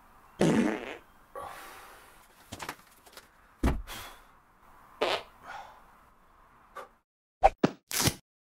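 A run of farts, the loudest and longest about half a second in, with shorter ones following at irregular gaps. A few quick sharp clicks come near the end.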